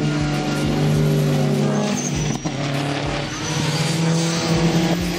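Several VW and Audi cars lapping a race circuit at speed, their engines running hard with overlapping engine notes that shift in pitch as they pass and change gear.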